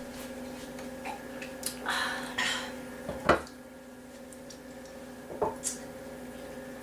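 Cutlery scraping and clicking against dishes during eating, with one sharper clink about three seconds in and a smaller one near the end, over a steady low hum.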